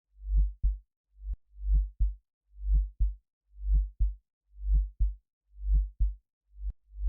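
Heartbeat sound effect beating steadily at about one beat a second, each beat a deep lub-dub: a soft swelling thump followed at once by a shorter, sharper one. Twice a beat comes with a sharp click on top.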